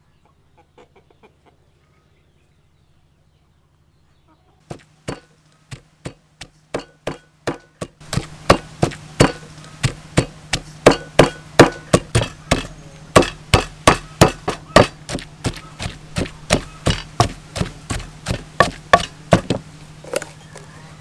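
Wooden pestle pounding garlic into a green young-tamarind paste in a clay mortar: a steady run of thuds, about two or three a second, starting about five seconds in and growing louder and denser about eight seconds in.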